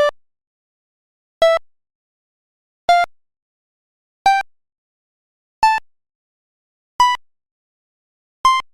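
Short electronic beeps from the Samsung Anycall SCH-V330's built-in sound set. There are seven, one about every second and a half, each a short note that dies away quickly. Each beep is a step higher in pitch than the one before, climbing like a scale.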